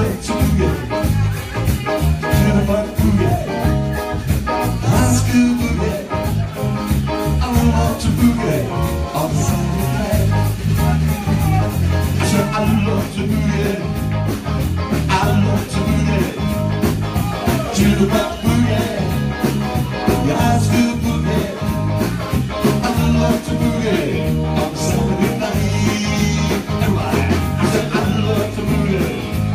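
Live pub rock band playing a song: drum kit keeping a quick, steady beat under electric guitar and a moving bass line.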